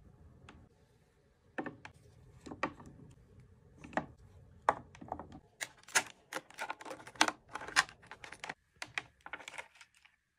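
Light clicks and taps of small toiletries (sample packets, cotton swabs, makeup-remover pads) being set into a clear plastic drawer organizer, with a faint rustle of packaging. The taps are sparse at first and come in a quick, busy run from about halfway through.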